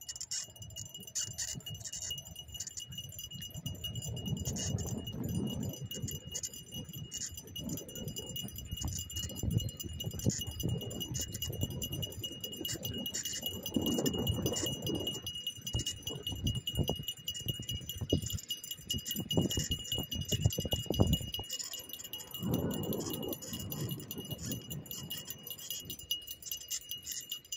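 Skateboard wheels rolling over an asphalt path with an uneven rumble that swells and fades, while the dogs' metal tags and leash clips jingle almost constantly as they pull. A steady thin high tone runs underneath.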